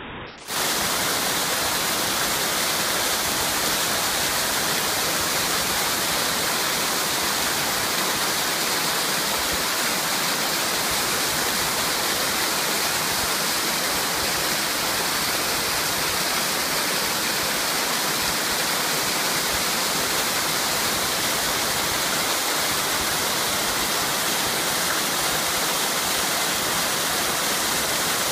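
A small creek waterfall, about 16 ft in two tiers, rushing steadily into its plunge pool; the sound cuts in suddenly at the start and then holds even throughout.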